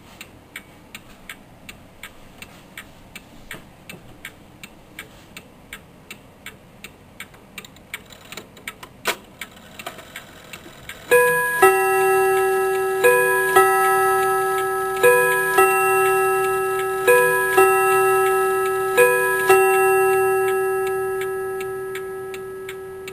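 Seth Thomas Cymbal No. 2 bim-bam clock (c. 1928) ticking steadily. About eleven seconds in it begins to strike with five bim-bam pairs about two seconds apart, each a higher cymbal tone followed by a lower one. The strike then rings out and slowly fades over the ticking.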